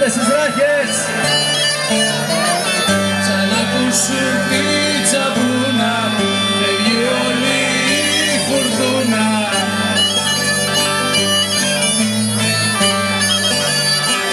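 Live Greek island folk band playing an instrumental dance tune: a sustained, wavering melody line over double bass and guitars, with bass notes changing about once a second.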